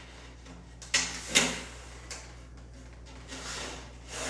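Handling sounds from drywall work: two sharp knocks about a second in, then a longer scraping or sliding sound near the end.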